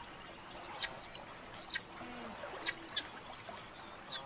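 Birds calling in the wild: short, sharp high chirps about once a second over a soft outdoor background, with a few faint low coos.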